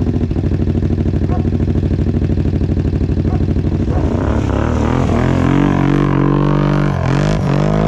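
Kawasaki KFX 700's V-twin engine idling with an even, fast pulse, then revved about four seconds in, its pitch rising and falling in several blips. It is running just after its rebuilt CVT variator has been refitted.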